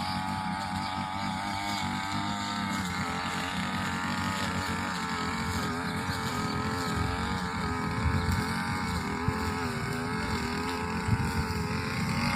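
Inari combine harvester's engine running steadily, its pitch wavering slightly, with a low rumble of machinery underneath.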